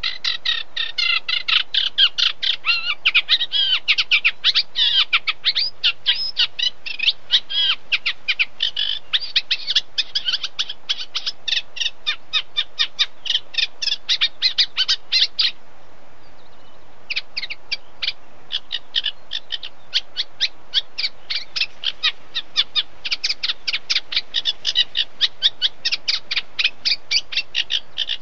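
A reed warbler (Acrocephalus) singing a long, fast string of short chattering notes. The song breaks off for about a second and a half midway, then starts again.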